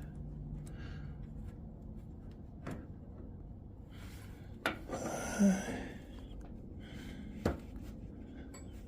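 Hand-working noises as a part is fitted into place: a few sharp knocks and rubbing, with a louder scrape and bump about five and a half seconds in. A person's breathing is heard between them.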